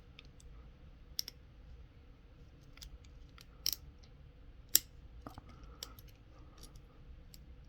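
Sparse small metallic clicks and light scraping of a tool working inside a padlock, about half a dozen distinct clicks spread unevenly with faint ticks between.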